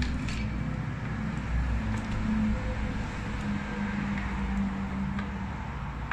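A steady low mechanical hum throughout, with a few faint clicks and scrapes of a knife and fork cutting smoked ribs in a metal roasting tray.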